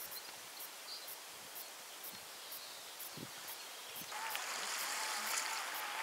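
Outdoor ambience: a steady, even hiss of open countryside, which about four seconds in changes abruptly to a louder, brighter hiss of sea water along a rocky shore, with a steady faint tone running under it.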